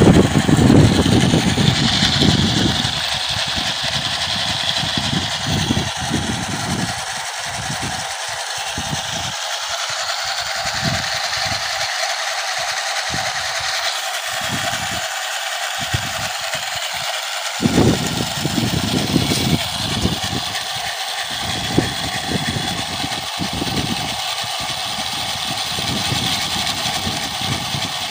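Homemade RC car's twin 775 DC motors running steadily under load, spinning its tyres against asphalt in a burnout. The sound is louder in the first few seconds.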